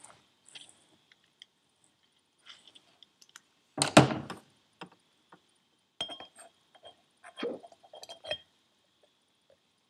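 Small metal turbocharger parts clinking and clicking against the bearing housing as they are handled and fitted. One louder clink about four seconds in, then a run of light clicks in the second half.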